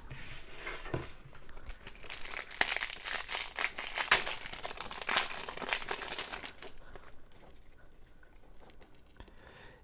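A trading-card pack's wrapper crinkling and tearing as it is opened and the cards are pulled out. The crinkling is busiest in the middle and dies down over the last few seconds.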